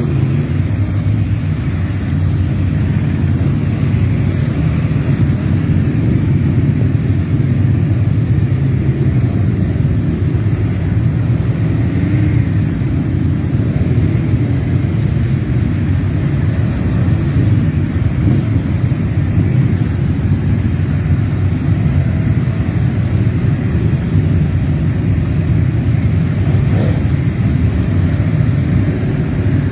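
Aprilia RSV4 RF's V4 engine running steadily under way, mixed with steady wind rush on the microphone.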